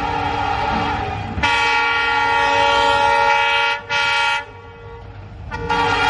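An Indian Railways electric locomotive's horn sounding in long steady blasts over the rumble of the passing train. There is a short break about four seconds in and a pause of about a second before it sounds again near the end.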